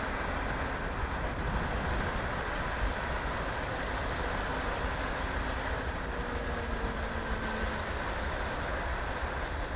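Wind buffeting the microphone with a steady low rumble. About five to eight seconds in, the faint whine of an electric RC model airplane's motor passes, falling slightly in pitch.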